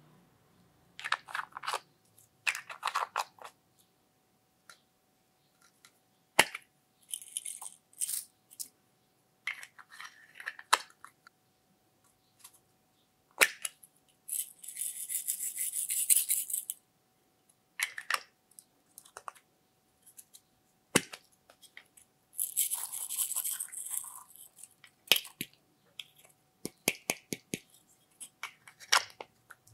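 Small plastic pots of glitter and sequins being handled and emptied out: sharp plastic clicks and taps, with two longer rattling, hissing pours, one about halfway through and one about two-thirds through.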